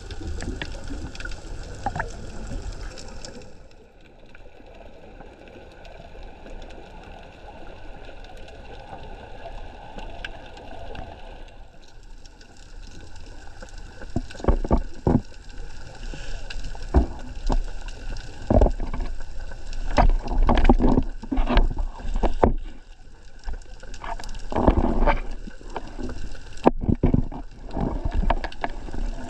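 Underwater sound through an action camera's housing: a steady wash of water noise with a faint steady hum, joined about halfway through by irregular knocks and rushing surges of water as the camera moves.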